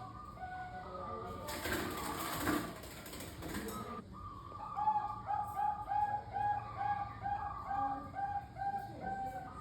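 Zebra dove (perkutut, Bangkok type) cooing: short notes stepping up and down in pitch, broken about 1.5 seconds in by some two seconds of rough, noisy sound, then a quick even run of notes at about two a second.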